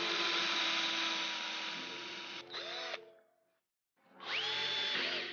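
Power drill driving screws into wood: the motor runs for about three seconds and slows near the end as the screw goes in, then stops. After a pause a second run starts about four seconds in, with a rising whine as the motor spins up.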